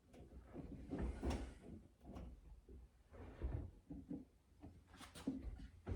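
A drawer sliding in and out on newly installed drawer slides: several short rolling runs with a few sharp clicks near the end.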